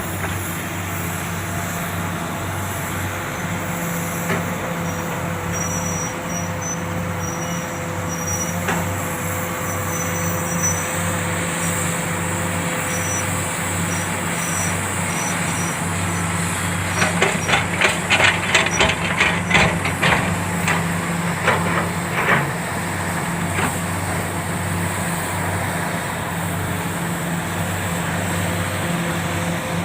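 Komatsu PC400 excavator's diesel engine running steadily under work. For several seconds midway through there is a run of loud clattering knocks as a bucketload of soil and rock drops into the dump truck bed.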